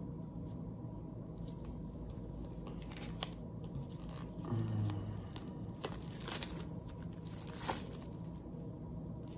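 Plastic shrink-wrap being torn and peeled off a CD album, crinkling with scattered short crackles and snaps.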